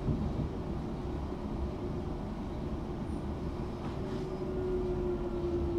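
Class 378 electric multiple unit heard from inside while running: a steady low rumble of wheels on track, with a thin traction-motor whine that grows stronger in the second half.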